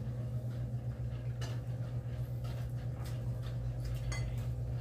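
Light clinks and taps of plates and tableware during a meal eaten by hand, a few faint clicks a second or so apart, over a steady low hum.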